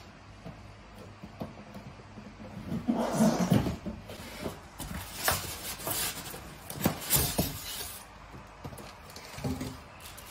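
A cardboard box being opened by hand: a series of scrapes and knocks as the flaps are folded back and a foam packing insert is pulled out, with plastic wrapping rustling near the end.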